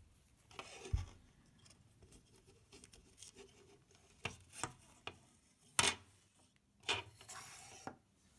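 A handful of faint, separate clicks and rubs as a ribbon belt is threaded through the plastic elevator unit of a Hot Wheels Tune-Up Tower and handled.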